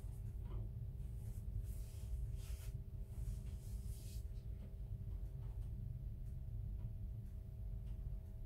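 Induction hob running at full power under a saucepan: a steady low hum with faint steady tones over it. Brief faint rustling in the first half.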